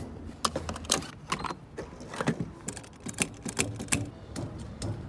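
Car refuelling handled at the filler: the plastic fuel cap being worked off and a gas pump nozzle put into the filler neck, heard as a run of irregular clicks and clunks.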